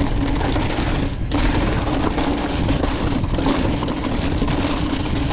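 Mountain bike descending a rocky dirt trail: the tyres crunch and rattle over rock and gravel, with heavy wind buffeting the handlebar-mounted camera's microphone and a steady buzz underneath.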